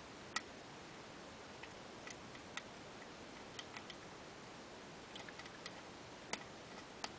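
Pin-tumbler pick working the pins of a Russwin rim cylinder under tension: light metallic clicks and ticks at uneven intervals, a dozen or so, over a faint steady hiss.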